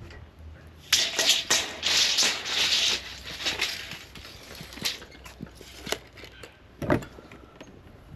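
A burst of rattling and clattering about a second in, lasting about two seconds, then scattered taps and knocks and a heavier thud near the end: hand work with timber and tools on a wall-framing job.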